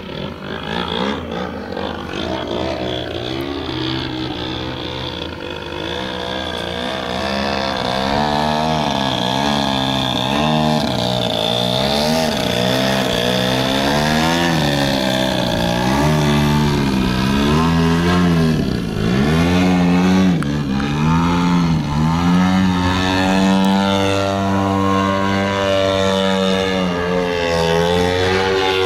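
Engine and propeller of a 35% Aeroworks Extra 260 giant-scale RC aerobatic plane in flight. The note sweeps up and down again and again as it manoeuvres, with a deep dip and climb back about two-thirds of the way through, and it grows louder over the first several seconds.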